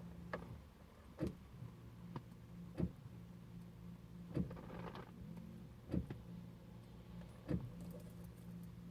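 Audi A3 1.8 that won't start: sharp clicks about every one and a half seconds over a steady low electrical hum, with no engine running.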